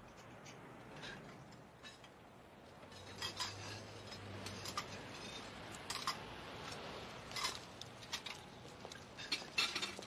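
Clinking and clattering of dishes and cutlery, with sharp clinks coming more often and louder from about three seconds in, over a faint steady background noise.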